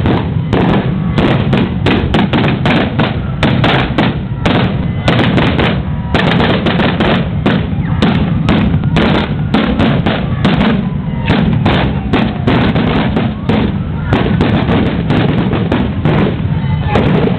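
Strings of firecrackers going off in a rapid, dense run of loud cracks, almost without a break.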